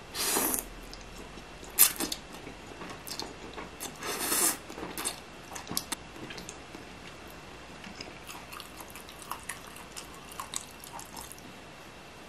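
Close-miked eating sounds: chewing and short wet mouth noises, with a metal fork clicking against the plate several times, the sharpest click about two seconds in.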